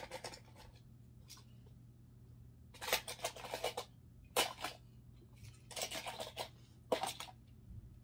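Small die-cast Hot Wheels toy cars clicking and clattering against each other as hands rummage through a case of them, in several short rattling bursts.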